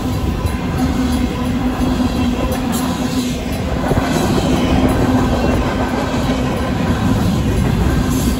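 Freight train's covered hopper cars rolling steadily past over the crossing, a loud, even noise of steel wheels on the rails. The crossing's mechanical bell keeps ringing through it.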